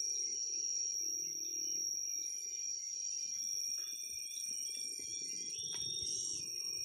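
Insect chorus: a steady high-pitched drone with fainter overlapping trills above and below it.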